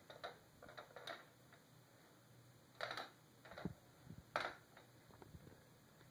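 Faint, scattered taps and short scrapes on a wooden floor as a cat paws at a three-armed spinner toy, the clearest about three seconds in and again near four and a half seconds.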